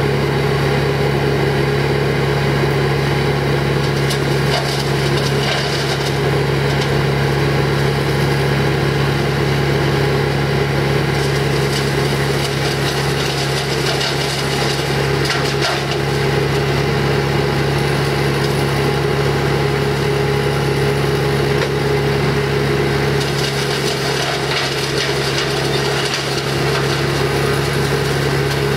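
Wood chipper engine running steadily, with stretches of wood being crushed and splintered as branches are fed through.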